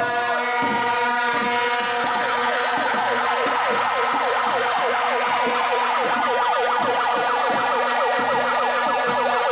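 Protesters' plastic horns blowing steady blaring tones, with a siren warbling quickly up and down over them from about a second and a half in. A drum beats steadily underneath.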